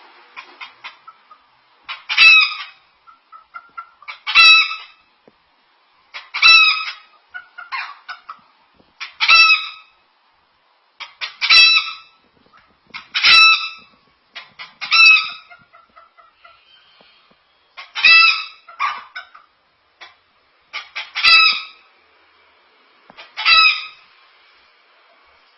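Cockatoo mimicking a chicken: runs of short, quick clucks, each building into a loud drawn-out cackle-like call. This repeats about ten times, every two to three seconds.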